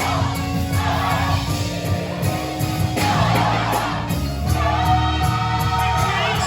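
Gospel choir singing with instrumental backing, the voices moving over steady low sustained notes.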